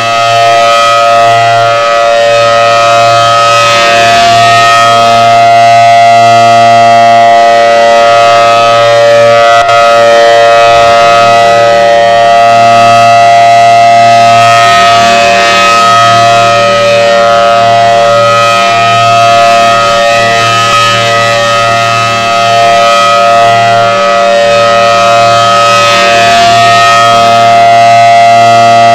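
Federal Signal Thunderbolt outdoor warning siren sounding a loud, steady tone during a test. Its rotating head makes the sound swell and fade slowly every several seconds.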